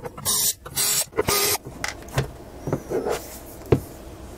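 Cordless electric screwdriver with a Torx bit whirring in three short bursts as it backs out the cover screws of a 3.5-inch hard drive. A few sharp clicks and knocks follow as the drive is handled and lifted.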